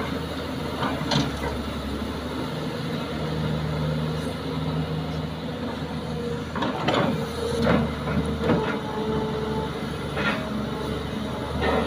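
Kobelco hydraulic excavator's diesel engine running steadily as it swings and works its bucket while loading soil, with several short clattering, hissing noises, most of them in the second half.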